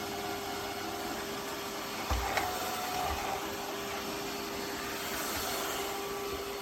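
eufy X10 Pro Omni robot vacuum running with a steady whirring hiss and a constant hum, with a low thump about two seconds in.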